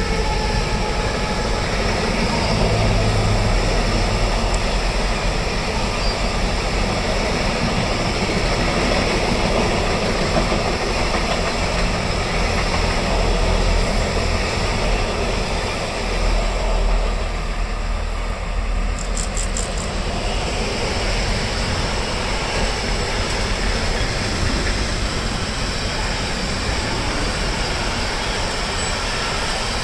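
Freight train wagons rolling past: a steady, continuous rumble and rattle of wheels on the rails, with a brief run of faint high clicks about two-thirds of the way through.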